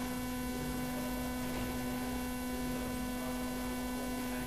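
Steady electrical hum with a string of evenly spaced overtones over a light hiss.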